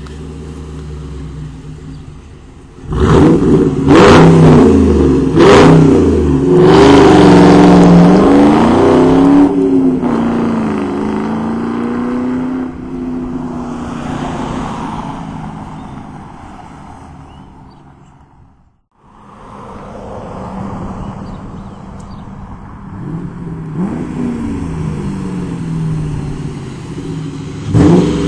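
2000 Ford Mustang GT's 4.6-litre V8 through an SLP Loudmouth exhaust. It idles, then about three seconds in it turns suddenly loud, accelerating hard away with the engine note rising and falling, and fades as it gets farther off. After a cut it is heard coming back, growing louder, and it passes close near the end.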